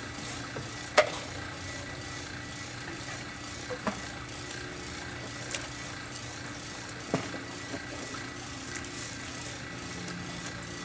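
A few short, sharp knocks over a steady background hum. The loudest is about a second in, with smaller ones near four and seven seconds.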